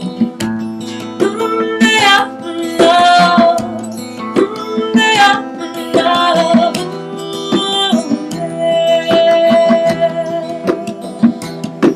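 A live acoustic band plays an instrumental song: a melody that bends in pitch, likely a flute, over plucked guitar and struck hand drums.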